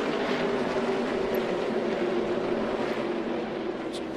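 A pack of NASCAR Xfinity Series stock cars racing flat out, their V8 engines blending into one steady engine note.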